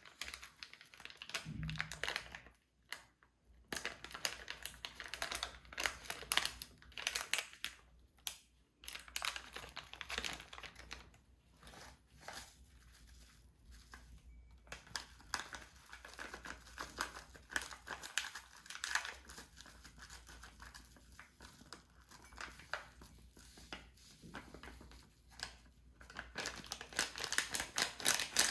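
Crinkling and rustling of something being handled, with many small irregular clicks and taps and a few brief pauses.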